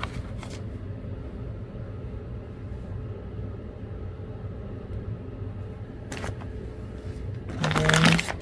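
Steady low background rumble with a faint constant hum, then a brief vocal sound near the end.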